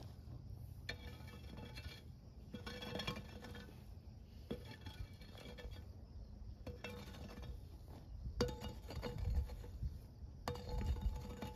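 Metal blade of a long-handled hoe scraping across packed dirt in repeated strokes, about one every second or two, each with a ringing metallic clink.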